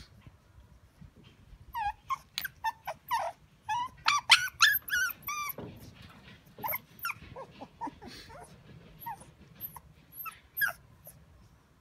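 Shiba Inu dogs whining and yelping: a run of short, high-pitched cries starting about two seconds in, crowding together in the middle and then thinning out.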